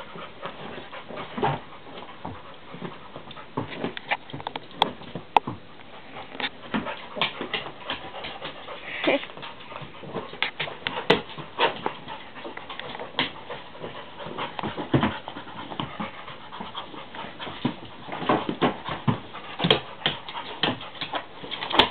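Black Labrador panting and scuffling as she wrestles a pillow on the floor, with many short, irregular knocks and scrapes.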